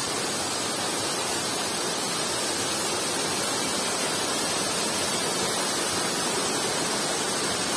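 Small waterfall cascading down rocks, a steady rush of falling water.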